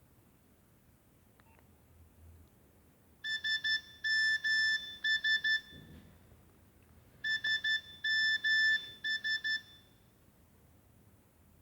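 Nokia 6070 ringtone: a short melody of quick high-pitched notes, played twice with a pause of about a second and a half between.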